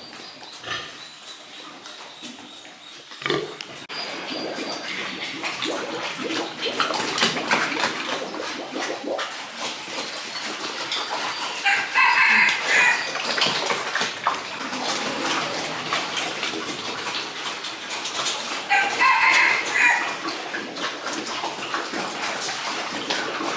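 A rooster crows twice, several seconds apart, over a steady rushing, crackling noise.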